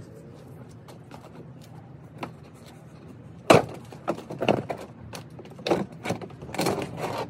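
Plastic rear bumper cover of a VW Jetta GLI being pulled off the car: a sharp crack about three and a half seconds in, then a quick run of snaps, clicks and rattles as it comes away from its mounts.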